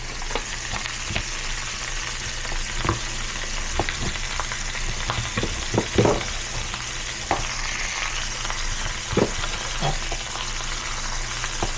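Food sizzling steadily as it fries in a pan, stirred with a utensil that knocks against the pan now and then.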